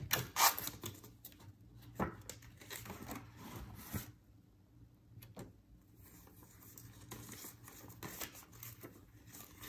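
Paper banknotes and a paper cash envelope rustling and rubbing as they are handled and slid about on a desk, with a few sharper crackles in the first two seconds and a quieter stretch in the middle.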